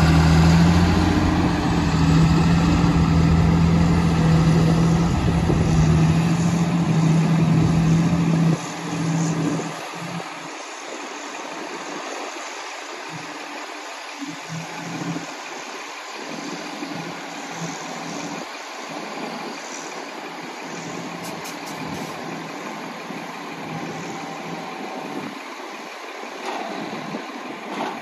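Heavy diesel engines running as tractors pack chopped corn silage on the pile. A loud, steady engine hum close by drops away about eight and a half seconds in, leaving quieter, more distant engine sound that rises and falls.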